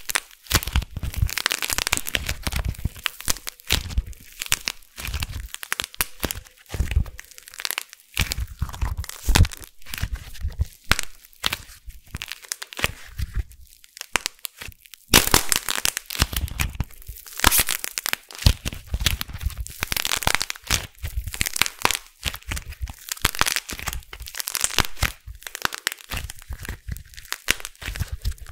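Hands cracking, tearing and squeezing a lump of dried grey clay: a dense, irregular run of crackles and crunches with short pauses between handfuls.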